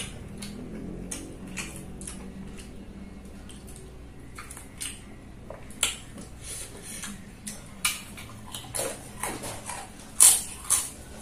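Eating sounds: fingers picking through rice and chicken fu yung hai, with scattered soft clicks and wet smacks. The loudest come about ten seconds in, as a handful goes into the mouth.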